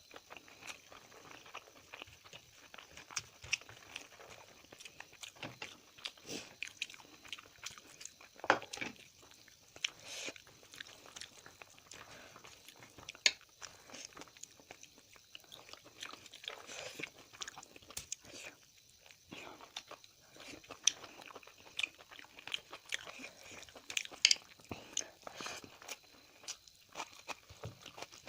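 A person eating close to the microphone: chewing and biting, with frequent short, irregular crunches and mouth clicks.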